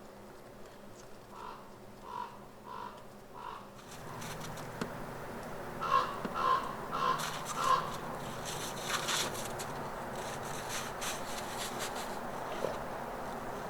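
A crow-type bird cawing in two runs of four caws, the second run, about six seconds in, louder than the first. A steady rushing noise comes in about four seconds in, with scratchy bursts later.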